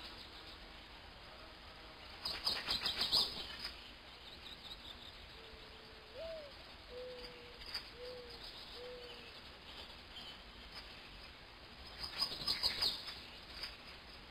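Birds calling: two short bursts of rapid high chirping, with a series of four low hooting notes between them, the first longer and flicking upward.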